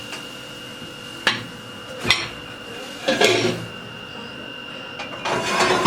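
A utensil knocking sharply against a cooking pot three times, then a longer stretch of scraping and clatter, as cooked ugali is scooped out of the pot onto a plate.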